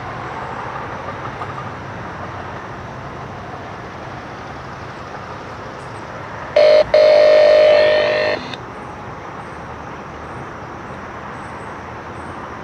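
MARC commuter train's air horn sounding a short blast and then a longer one of about a second and a half, a loud multi-note chord, over a steady low rumble.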